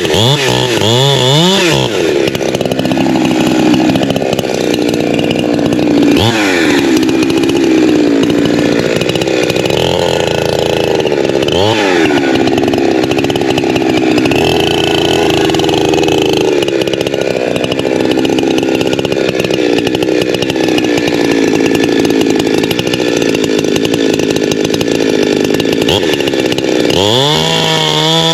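Holzfforma G372XP two-stroke chainsaw running at high revs through a cut, the engine note dipping and rising now and then. It is revved up and down in quick blips at the start and again near the end.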